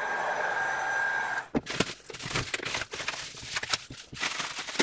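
Electric heat gun blowing, a steady rush of air with a thin high whine, switched off about a second and a half in. After that comes a string of clicks, knocks and rustles as it is handled and set down.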